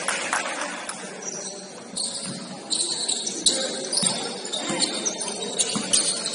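Indoor basketball game in a large echoing gym: scattered short, high-pitched squeaks and clicks, typical of sneakers on the court, with a few thuds and faint voices.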